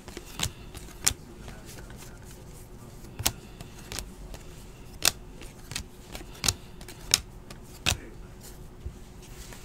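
2017-18 Donruss basketball trading cards being sorted by hand, flicked off a held stack and set onto piles, giving sharp irregular card snaps and taps about once a second.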